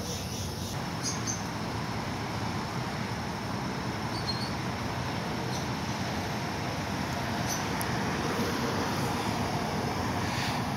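Steady traffic and vehicle-engine noise: an even rumble and hiss with no distinct events.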